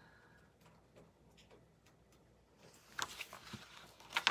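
Quiet room tone, then about three seconds in, rustling and a few sharp clicks from a hardcover picture book being handled as its page is turned. The loudest click comes near the end.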